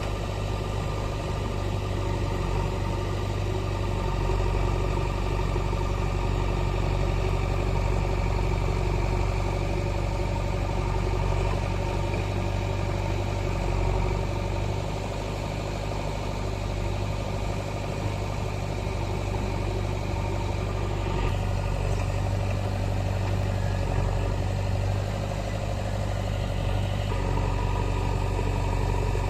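Heavy diesel engine of working machinery running steadily at low speed, a constant low hum, with a slight change in tone about two-thirds of the way through.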